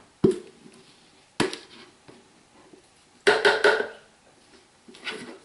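Spoon knocking and scraping inside a plastic tub to get the last of the solid soaping oils out into a crockpot. There are two sharp knocks within the first second and a half, then a quick run of taps a little past three seconds in.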